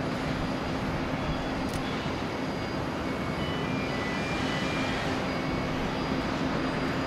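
Boeing 787-9 airliner landing: steady jet engine noise, heard from afar, as it flares and touches down on the runway, with a constant low hum beneath.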